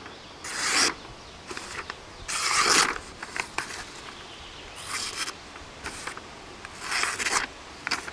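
Steel blade of an NC Custom SCAR knife slicing through a sheet of paper in about four swishing strokes a couple of seconds apart, with small paper rustles and ticks between them. It is a sharpness check of the edge after opening tin cans.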